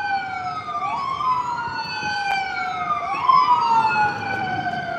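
Emergency vehicle sirens wailing, two of them out of step: one sweeps slowly up in pitch while the other falls, each full rise and fall taking a few seconds.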